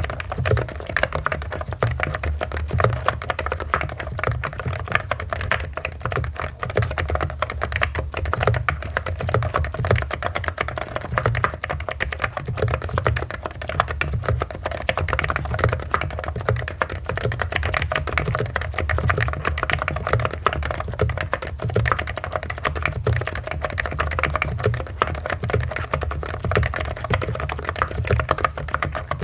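Continuous fast typing on a Hansung GK898B electro-capacitive keyboard, a dense stream of keystrokes, many per second, without a break.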